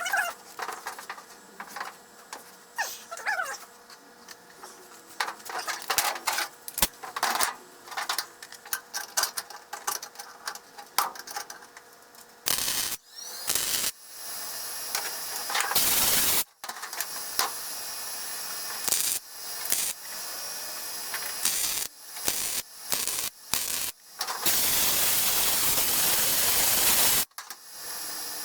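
Arc welding on car-body sheet steel: scattered clicks and short crackling bursts at first, then from about halfway through longer runs of steady hissing crackle, each cut off suddenly, the longest near the end.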